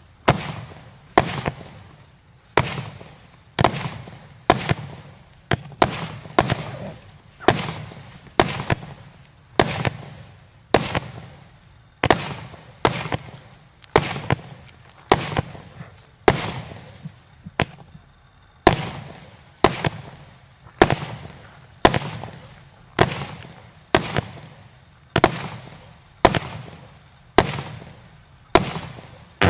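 A 0.6-inch, 80-shot consumer fireworks cake firing shot after shot, a sharp bang about every three-quarters of a second, each followed by a fading crackle from the crackling peony stars.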